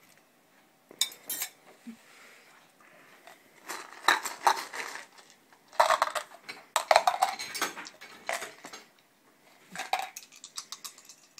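Plastic game dice clicking and rattling together as they are drawn by hand from a dice cup and shaken in cupped hands, in several short spells of clicking with pauses between.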